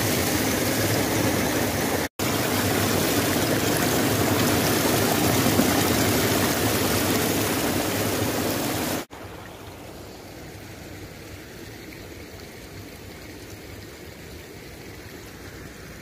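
Small waterfall splashing down a grassy bank, a steady rush of falling water with a split-second break about two seconds in. About nine seconds in it drops abruptly to a much quieter, soft flow of shallow water running over a grassy field.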